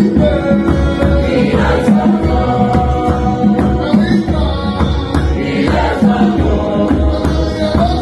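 Gospel song: a group of voices singing long, held notes over a steady beat of drums and bass.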